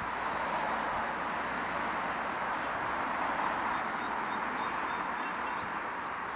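Steady distant city traffic hum. Small birds chirp in short high notes from about four seconds in.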